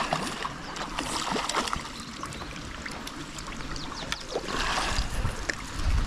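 Hooked trout splashing at the water's surface as it is drawn to the bank and into a landing net, with water sloshing as the net scoops it up near the end.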